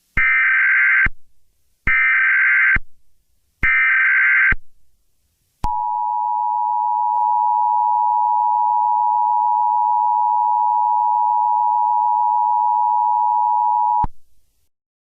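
Emergency Alert System header: three short bursts of SAME digital data tones about a second apart, then the EAS two-tone attention signal, a steady tone held for about eight and a half seconds that cuts off suddenly, announcing a tornado watch.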